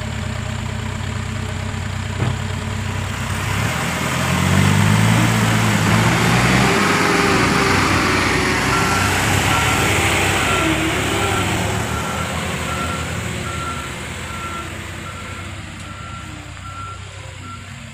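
Loaded Euro 4 diesel dump truck's engine revving as it pulls away through mud, loudest a few seconds in and then fading as the truck drives off. From about halfway, a backhoe loader's reversing alarm beeps steadily, roughly once every two-thirds of a second.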